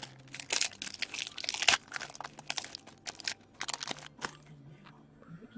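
Plastic wrapper of an O-Pee-Chee Platinum hockey card pack crinkling and tearing as it is ripped open, with the cards shuffled in the hand. A dense run of sharp crackles thins out after about four seconds.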